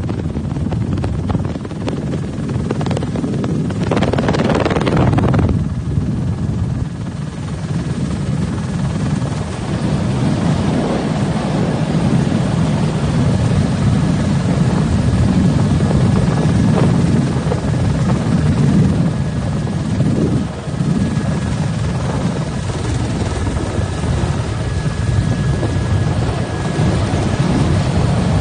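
Steady helicopter engine and rotor noise, heard from on board, with a brief higher rush about four seconds in.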